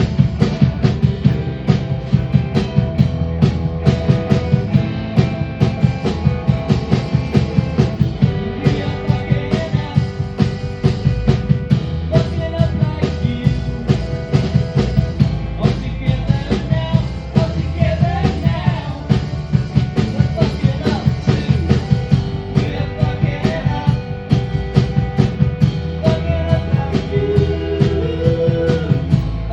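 Rock band playing live, the drum kit keeping a steady, driving beat under the other instruments.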